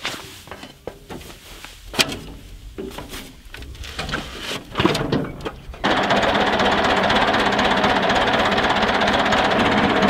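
A tractor being climbed onto, with a few knocks and scrapes, then its engine starting about six seconds in and running on steadily with a fast, even clatter. The engine is cold and is being left to warm up.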